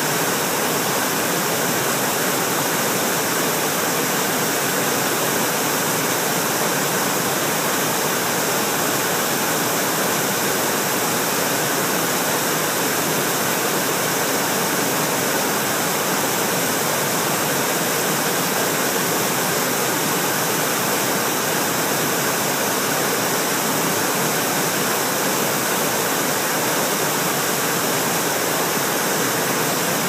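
Waterfall on a small brook pouring over a rock ledge into a pool: a loud, steady rush of falling water.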